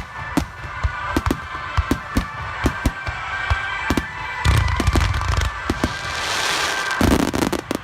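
Aerial fireworks bursting at close range: a run of sharp bangs, a dense volley about halfway through, then crackling and a last loud burst near the end.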